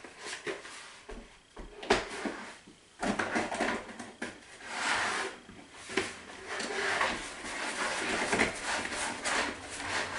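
Small plastic bottles knocking and clattering together as a hand rummages through them in a large plastic bowl, with a brief lull about two seconds in.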